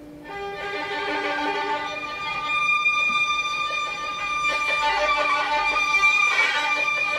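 Violin music with long held, overlapping bowed notes that swell after a quiet start.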